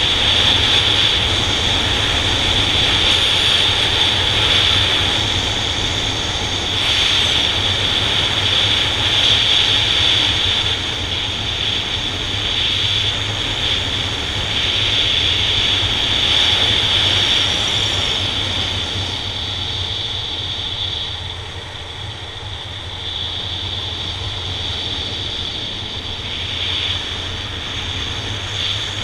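Honda Nighthawk 750's air-cooled inline-four engine running as the motorcycle is ridden, heard from the bike with a steady hiss over it. It grows somewhat quieter in the last third.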